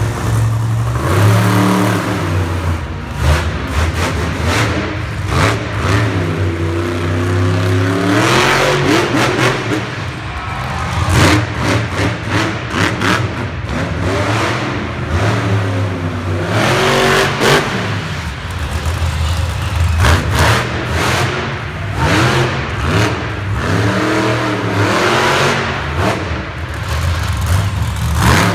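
Monster truck engine running loud, revving up and falling back several times in long surges.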